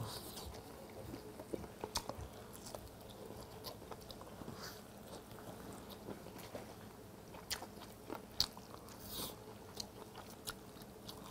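Close mouth sounds of someone gnawing charcoal-grilled pork off the bone: chewing with scattered wet smacks and clicks. A sharp low thump comes right at the start.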